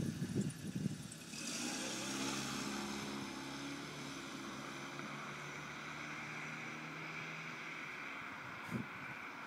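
Wind buffets the microphone in the first second. Then church bells ring out from about a second and a half in, their mingled tones holding and slowly fading.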